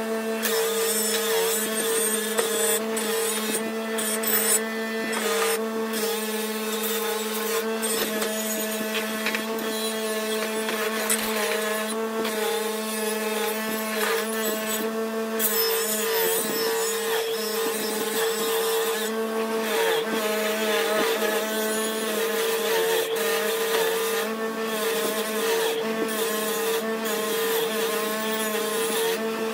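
Bench grinder motor running with a steady hum while cast aluminium bronze is pressed against its spinning wheel, adding a rough hissing grind that shifts as the metal is moved about.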